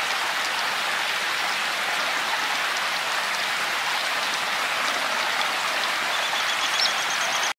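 Rain falling steadily, an even hiss of drops on the street, trees and window.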